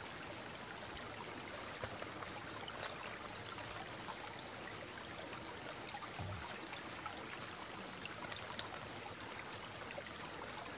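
A small, shallow forest brook running over stones: a steady, even sound of flowing water, with a few faint ticks.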